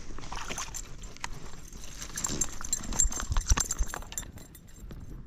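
Irregular clicks, knocks and clatter of a small bass being landed and handled, with a cluster of heavier low thumps from about two to four seconds in.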